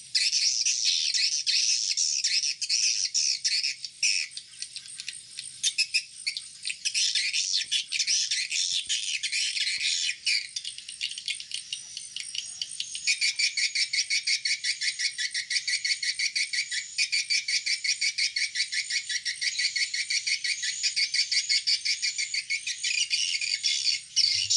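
Recorded swiftlet calls played as a lure: dense, rapid, high-pitched chirping and twittering, turning into a faster, even ticking chatter in the second half. It is a sound test of the call meant to draw swiftlets in to roost.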